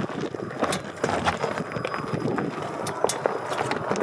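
Rivian R1T electric pickup's tyres crunching over loose rocks and gravel, with irregular stone clicks and cracks; no engine is heard.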